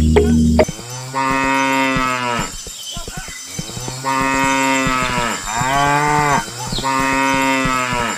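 Cow mooing: four long, steady moos one after another, each lasting a second or more.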